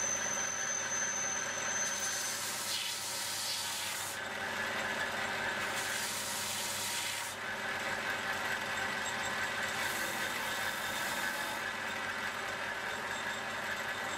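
Performance Power Tools belt-and-disc bench sander running with a steady motor hum. A wooden block is pressed to the abrasive three times, each giving a hiss of sanding that lasts a second or two.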